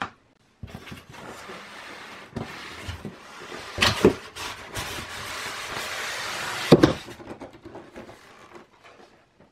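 Polystyrene foam packing insert being pulled up out of a cardboard box, rubbing and scraping against the box sides, with two louder knocks partway through.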